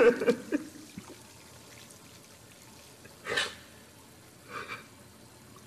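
Water splashing in short bursts: a loud one at the very start, a strong one about three seconds in and a smaller one a second later.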